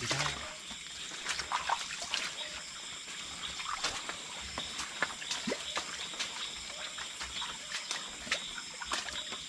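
Water sloshing and trickling, with many scattered small splashes and clicks.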